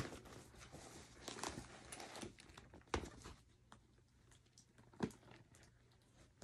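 Handling of a tote bag and its shoulder strap with metal snap-hook clasps: soft rustling, with three sharp clicks, at the start, about three seconds in and about five seconds in.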